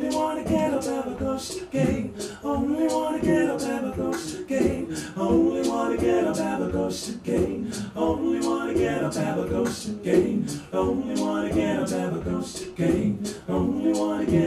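A man singing with a steady beat of sharp percussive clicks under the voice, little or no guitar heard.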